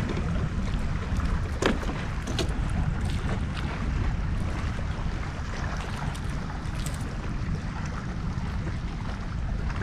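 Wind buffeting the microphone on a kayak, with water lapping at the hull and a few light clicks and knocks.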